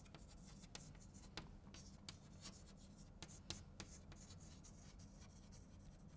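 Chalk writing on a chalkboard: faint, irregular short taps and scrapes as letters are stroked out.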